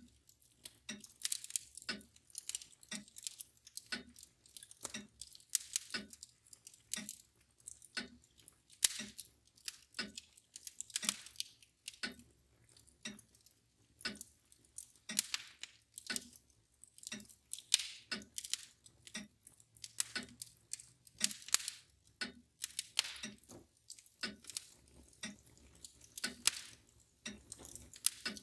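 Wood fire crackling with irregular sharp pops, over a mantel clock ticking steadily about once a second.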